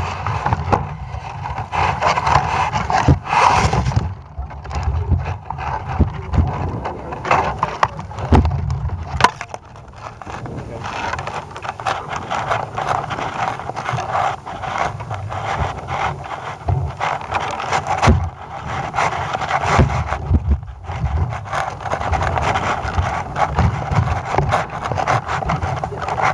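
Irregular knocks and rubbing on a camera payload hanging under a tethered balloon as it is lifted and rises, over a steady haze of wind on its microphone.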